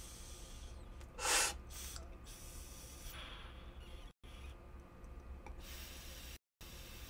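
A person drawing through a Yocan Dive electric nectar collector while its heated tip touches concentrate: a short, sharp inhale about a second in, then quieter drawing with a faint hiss.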